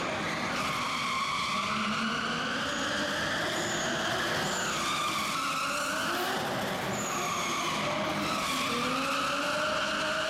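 Nissan 200SX (S14 facelift) drift car sliding, its engine revving up and down repeatedly while the rear tyres skid and squeal.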